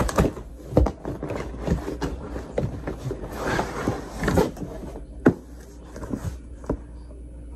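Cardboard shipping box being opened by hand: scattered knocks and taps of the box, with a longer rasp of cardboard as the flaps are pulled open about three and a half seconds in.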